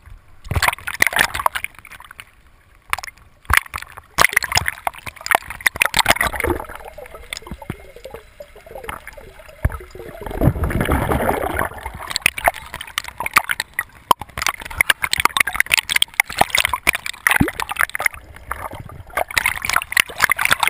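Water rushing, gurgling and splashing over a GoPro's housing on a boat-towed Plana Sub board as it is dragged through and under the surface, with a dense crackle of bubbles. A louder, deeper rush swells about ten seconds in.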